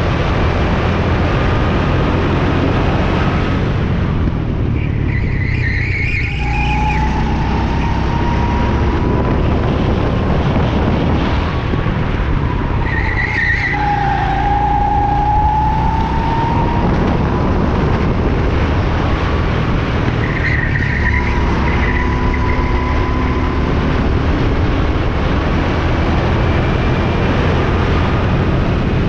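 Go-kart engine running hard at speed, its pitch dipping and rising through the corners. The tyres squeal briefly three times as the kart is thrown through turns.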